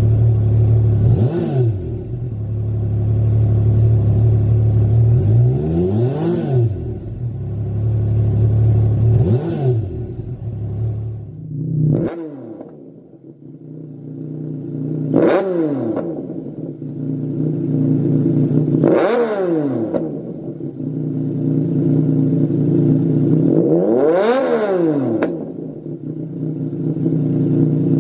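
Yamaha MT-09 Tracer's three-cylinder engine idling and revved in short blips every few seconds, pitch rising and falling with each rev. For the first part it breathes through the stock exhaust with a deep, heavy idle. About halfway through the sound changes abruptly to the same engine through a Lextek CP1 aftermarket silencer, blipped about five more times.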